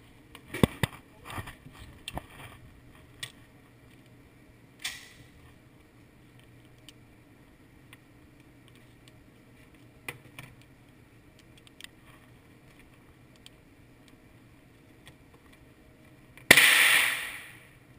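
A string of sharp handgun handling clicks and knocks in the first couple of seconds, a single crack about five seconds in, then one loud gunshot near the end that rings out and dies away over about a second.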